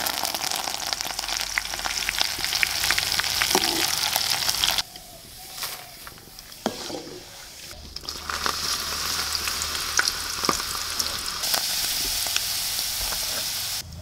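Curry leaves frying in hot oil, a loud sizzle with many small crackles. It dies down about five seconds in. Near the middle it swells again as dried chilli pieces are tipped into the oil.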